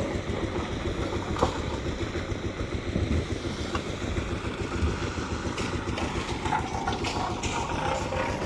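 An engine running steadily with a rapid low chugging, with some scattered clatter over it.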